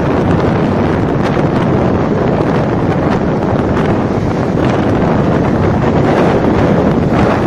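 Wind blowing loudly across the microphone at the seashore, a steady rushing noise with sea waves washing underneath.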